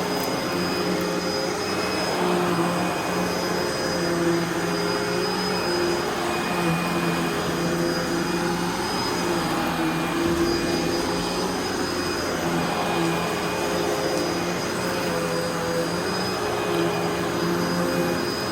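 2008 Hoover Legacy Pet Rewind upright vacuum cleaner running continuously, fitted with a new motor. It gives a steady drone with a motor whine whose pitch dips and rises slightly every few seconds.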